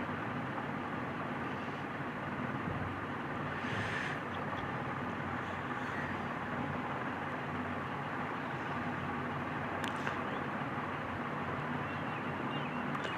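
Steady background noise with a few faint clicks, about 4, 10 and 13 seconds in, as small metal fan parts are handled.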